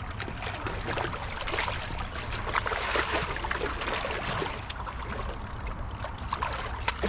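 River water rushing and splashing, with many short scattered splashes and knocks.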